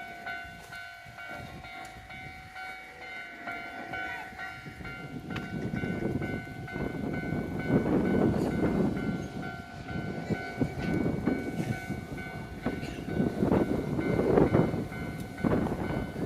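Japanese level-crossing alarm ringing with a steady repeating electronic tone. A train approaches and passes, its rumble building from about six seconds in, with repeated surges as the wheels clack over the rail joints.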